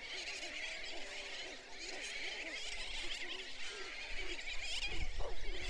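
Field recording from an acoustic recorder of many birds calling at once: low, wavering, arching moans overlap one another, above a dense high-pitched chorus.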